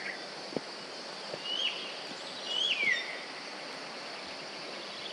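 Outdoor hillside ambience: a steady high insect drone with a bird calling twice, about one and a half seconds in and again near three seconds, the second call a whistle that rises and then slides down. A few faint taps are also heard.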